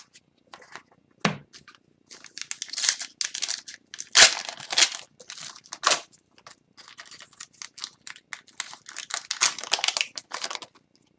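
Crinkling and tearing of a hockey card pack's wrapper being ripped open, with irregular rustling and crackling strokes as the wrapper is handled and the cards are pulled out.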